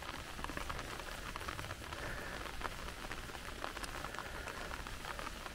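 Rain falling steadily: a soft, even hiss scattered with small ticks of individual drops.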